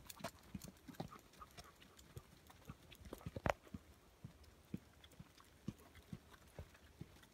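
Footsteps on a dirt forest path at a steady walking pace, about two to three soft steps a second, with one sharper knock about three and a half seconds in.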